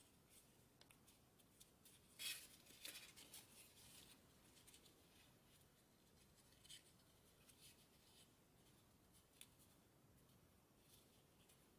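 Faint crinkling and rustling of origami paper being folded and pinched between the fingers, in a cluster about two to four seconds in, then small scattered crackles.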